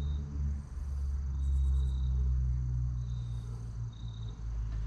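Insects chirping in short, repeated high notes, with a brief fast trill about a second and a half in, over a steady low rumble.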